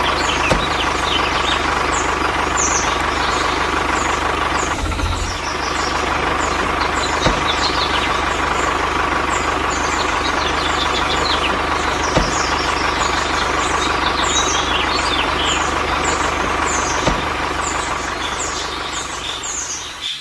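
A vehicle engine running steadily, with many short bird chirps over it. The drone starts and stops abruptly, and dips briefly about five seconds in.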